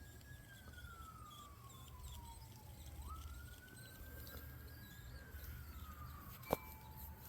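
Faint distant siren wailing: one pure tone that slowly falls, jumps back up about three seconds in, holds and falls again. A single sharp click near the end.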